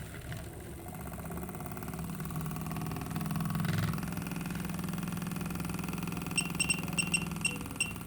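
A steady low mechanical hum, joined about six seconds in by a quick series of sharp clicks, roughly three a second.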